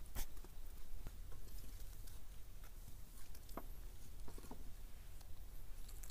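Small puppies' paws scrabbling and scratching about, heard as light, scattered taps and scrapes.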